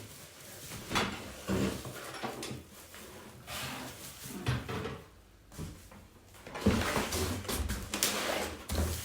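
Rustling of cardboard and packing material with irregular knocks and thuds as the parts of a flat-pack table are handled and set down, louder and thumpier near the end.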